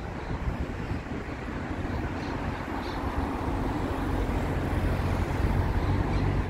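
Street traffic: a motor vehicle's low rumble getting louder over a few seconds, then cutting off suddenly.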